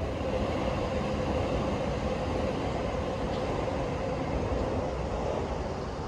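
Electric commuter train running along the track past a level crossing, a steady rumble with a held tone, easing off toward the end as it moves away.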